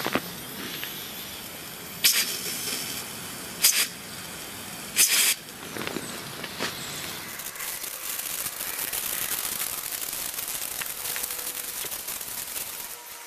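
Miniature live steam model starting up: three short bursts of steam hiss from the boiler, then from about seven seconds the small steam engine running fast, its exhaust a steady hiss made of rapid fine ticks.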